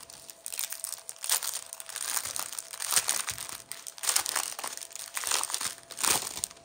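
Small plastic bags of diamond painting drills crinkling and rustling as they are handled, in irregular bursts.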